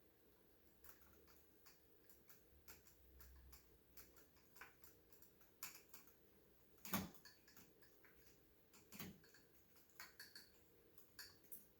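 Faint, scattered small clicks and taps of tiny screws, parts and hand tools being handled during model assembly, with a sharper click about seven seconds in and another about nine seconds in.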